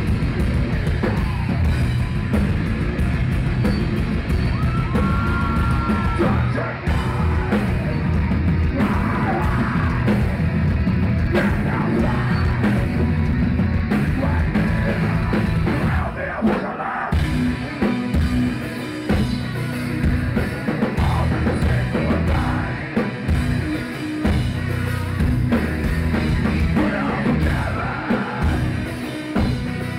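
Heavy metal band playing live: distorted guitars, bass and drums with a singer's vocals, the riff stopping and starting several times past the middle.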